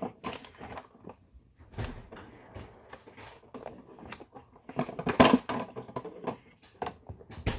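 Small plastic toy pieces and packaging being handled: scattered clicks, knocks and rustles, with the loudest clatter about five seconds in and a sharp click near the end.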